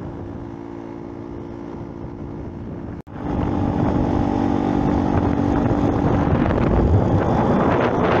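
Motorbike engine running at a steady cruise, with wind noise on the microphone. About three seconds in the sound cuts abruptly and comes back louder, with more wind.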